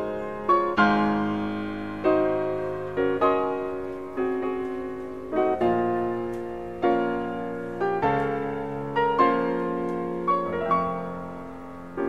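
Slow, gentle solo piano music: single notes and chords struck about once a second, each ringing and fading before the next.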